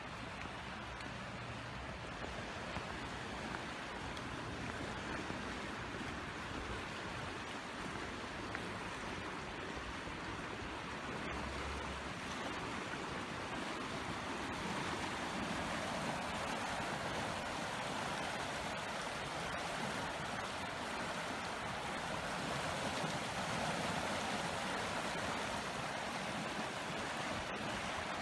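Rushing water of the French Broad River running high with floodwater, a steady wash that grows a little louder about halfway through.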